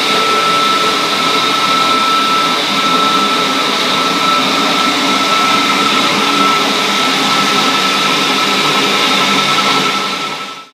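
HVAC equipment running: a loud, steady rush of air with a constant high-pitched whine, fading out near the end.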